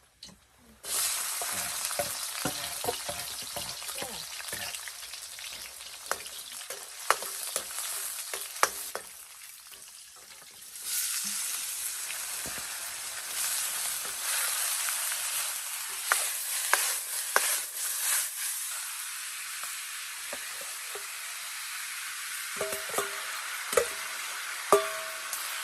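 Ingredients hitting hot oil in a pan and sizzling hard, with a metal spatula clacking and scraping as they are stir-fried. The sizzle starts suddenly about a second in, dies down around nine seconds in, then flares up loudly again at about eleven seconds as more goes into the pan.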